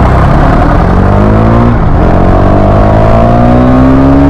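KTM Duke 390's single-cylinder engine accelerating hard, its pitch climbing steadily. An upshift about two seconds in drops the pitch briefly before it climbs again.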